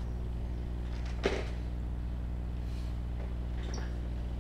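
A steady low hum runs throughout, with a single sharp knock about a second in.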